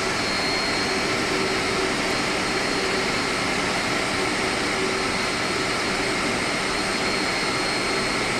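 Steady drone of air-conditioning plant machinery running in a machine room, a constant roar with a thin steady high whine.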